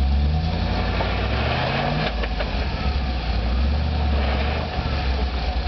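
Land Rover Defender 90's engine pulling at low revs as the vehicle crawls through a deep rut. The revs rise during the first two seconds, then drop back to a low, steady running note. There are a couple of short clicks about two seconds in.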